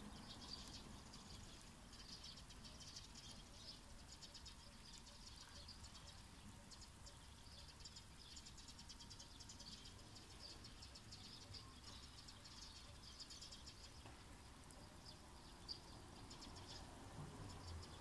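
Quiet countryside ambience at dusk: faint, rapid high-pitched chirping in short runs that keep recurring, over a low rumble.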